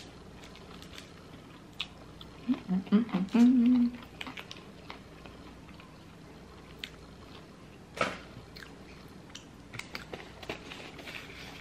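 Close-up chewing and mouth sounds of a person eating spicy popcorn chicken nuggets, with scattered small crunches and clicks. A short stretch of voice is heard about two and a half seconds in, and there is a sharp click about eight seconds in.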